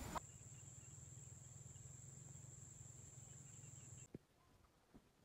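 Faint, steady, high-pitched insect trill over a low hum, which cuts off suddenly about four seconds in, leaving near silence with a faint click.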